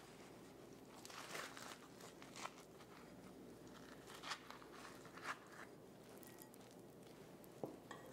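Faint scraping and crunching of a spoon scooping stringy roasted spaghetti squash flesh out of its skin, in short strokes every second or so, ending in a sharp click.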